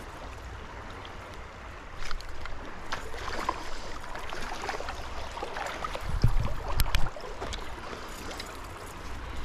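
Stream water running steadily over rocks. From about two seconds in there is irregular splashing and knocking close by, and the loudest moment is a few low thumps just before seven seconds.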